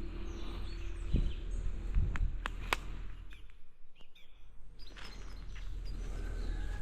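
Outdoor ambience of small birds chirping over a steady low rumble, with a few sharp taps in the first three seconds.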